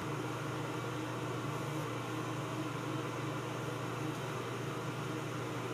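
Steady low hum with an even hiss above it, unchanging and with no separate sounds: the constant background noise of the room.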